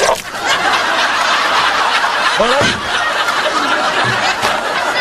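A sudden loud burst of air blown into a pint of beer right at the start, frothing it up. It is followed by steady laughter from an audience.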